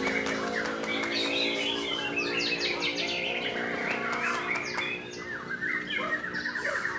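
White-rumped shama (murai batu) singing a fast, varied run of chirps, whistles and rapid trills, with a low steady hum under the first couple of seconds.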